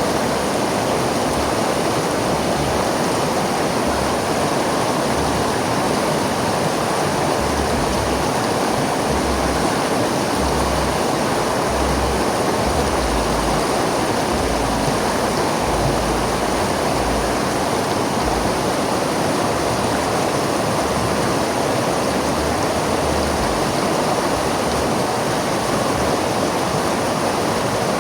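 River water flowing and rushing in a steady, unbroken stream, with a low rumble underneath.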